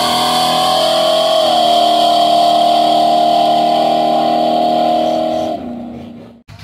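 Chevrolet C10 pickup's engine through its new exhaust at full throttle down the drag strip, heard as the truck pulls away: its note steps down about a second and a half in, as at an upshift, holds steady, then falls away about five and a half seconds in as the throttle comes off. The sound cuts off abruptly near the end.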